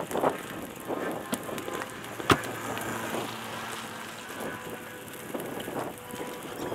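Crunching and rattling from moving over a gravelly dirt track, in uneven surges, with a sharp knock about two seconds in.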